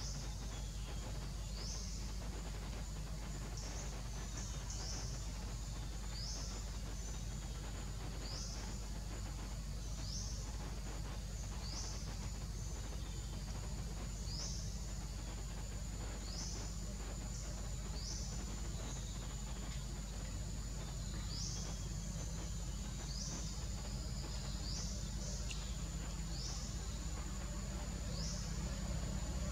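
Tropical forest ambience: a steady high insect drone with short high chirps repeating about once a second, over a steady low rumble.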